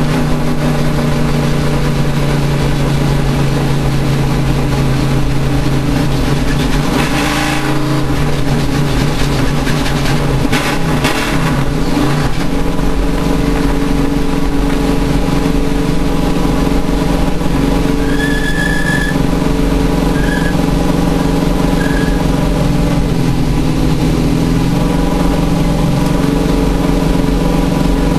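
A race vehicle's engine running steadily, its pitch wavering and shifting for a few seconds about a quarter of the way in, then settling again. Three short high beeps sound about two-thirds of the way through.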